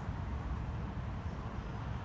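Steady low rumble of street traffic around a roundabout, an even background noise with no distinct events.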